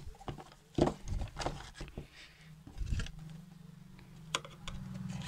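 Cardboard box of a Vivo V17 Pro smartphone being handled: short knocks and rustles as the lid slides off and the box is moved about. A low steady hum comes in about three seconds in.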